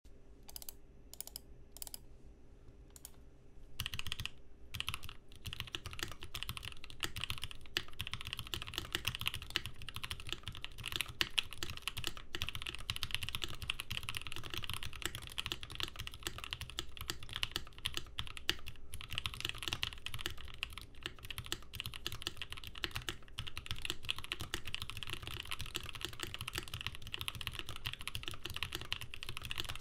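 Typing on a 512 custom mechanical keyboard fitted with NK Cream linear switches lubed with 205g0, tuned Durock stabilizers, a brass plate and GMK Olivia Dark keycaps. A few separate keystrokes come first, then from about four seconds in a fast, continuous run of typing.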